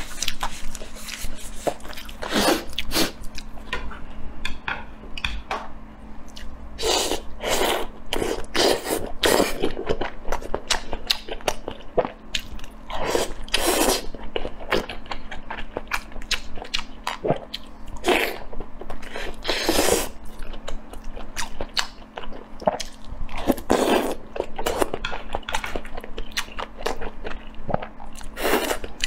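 Close-miked eating: bites and chewing of sesame-coated glazed doughnuts, a run of short, irregular mouth noises.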